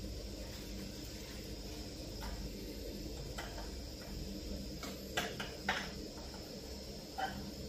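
Peanuts deep-frying in hot oil in a pot: a steady sizzle over the low hum of the stove, with a handful of sharp clicks and taps about halfway through and near the end.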